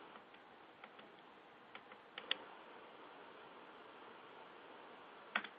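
A handful of faint, sharp clicks over a low steady hiss: a few a little under a second and about two seconds in, the loudest pair just after two seconds, and one more near the end.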